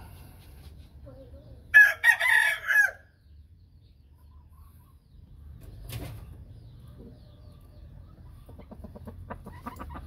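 Gamecock rooster crowing once, a short crow lasting about a second, followed near the end by soft, rapid clucking.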